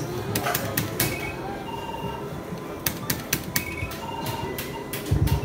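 Electronic bingo machine's ball-draw sound effects: a run of sharp clicks and short electronic beeps as the balls come out. A low thump near the end.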